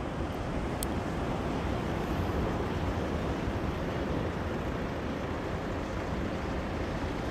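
Steady rushing noise of wind buffeting the microphone over the wash of sea surf, heaviest in the low end.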